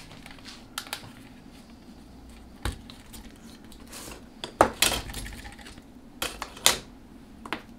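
Metal tools and parts being handled on a workbench: a series of irregular sharp clinks and knocks, the loudest a little after the middle, over a faint steady hum.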